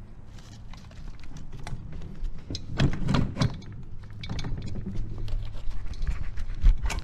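Metal clinks, knocks and scrapes as the aluminium cylinder block of a Rotax 850 two-stroke twin is worked loose by hand and lifted off the crankcase over the pistons. The loudest knocks come about three seconds in and near the end.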